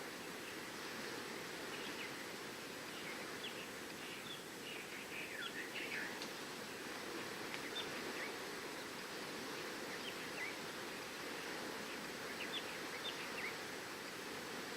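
Steady rush of waves on the seashore, with scattered short, high bird chirps, in a cluster about four to six seconds in and again near the end.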